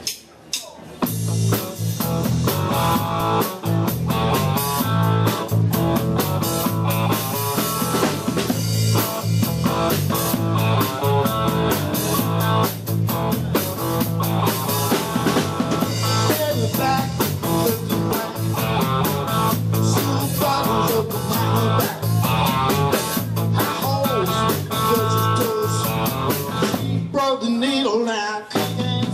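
Live band playing: electric guitar, bass guitar and drum kit, starting about a second in. The bass line drops out briefly near the end.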